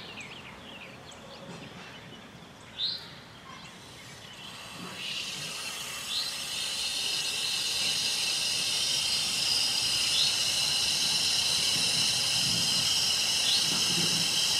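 Water hissing through the valve at the water meter as it is opened slowly to refill the repaired service line; the hiss builds from about four seconds in and then holds steady. A bird chirps twice before the hiss starts.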